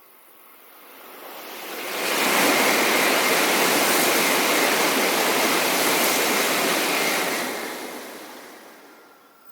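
A Sanyo Shinkansen bullet train passing at high speed: a rush of noise that swells over about two seconds, holds steady for about five, then fades away, with a faint high whine under it.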